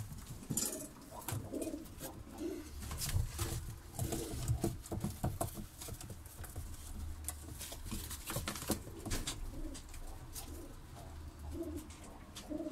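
Domestic pigeons cooing repeatedly in a loft, with scattered light clicks and scuffs.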